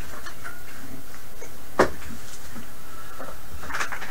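A single sharp clack about two seconds in, from the power supply's test leads and banana plugs being handled as they are hooked up, over steady low background noise.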